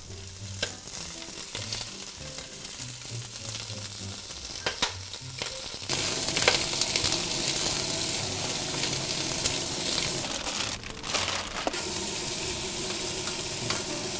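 Chicken drumsticks searing in hot olive oil in a cast-iron pot: steady sizzling that gets louder about six seconds in, with a few brief knocks as pieces are set down and moved with tongs.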